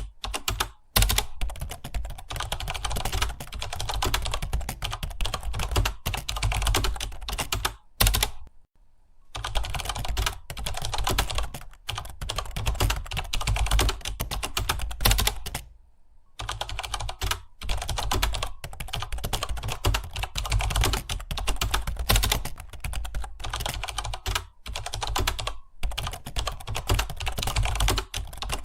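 Fast typing on a computer keyboard: a dense, continuous run of key clicks. It breaks off briefly twice, about eight and sixteen seconds in.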